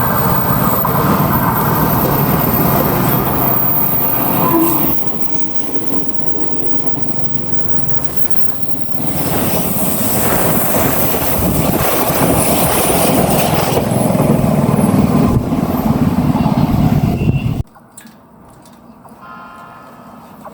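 Odakyu Line train running past, a loud rushing rumble with wind blowing on the microphone. The sound dips for a few seconds after about five seconds, then builds again, and drops off suddenly near the end.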